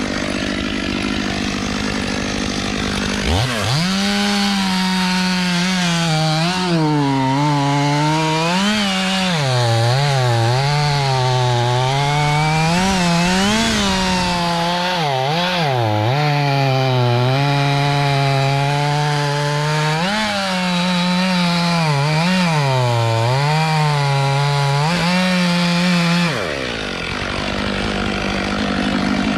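Chainsaw revved up about three seconds in and cutting wood for over twenty seconds, its engine pitch sagging and recovering as the chain bites and the load changes. Near the end the throttle is let off and the pitch drops. A steadier engine tone can be heard before it revs up and after it lets off.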